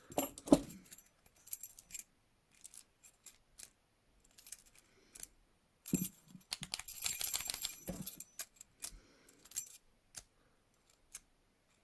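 Small metallic clicks and rattles from a key being worked in a cheap Sepox padlock, with a longer jingle of keys about six seconds in; the lock does not open.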